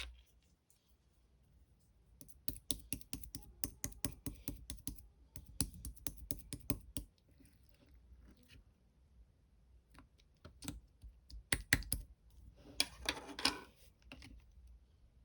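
Kiwi sherbet slime being pressed and worked by hand, giving rapid runs of small sharp clicks and pops, then a few louder single pops and a short wet squish near the end.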